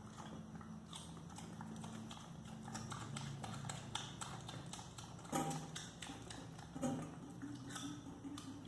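Mini pig crunching a carrot: irregular crisp clicks and crunches of chewing, over a low steady hum.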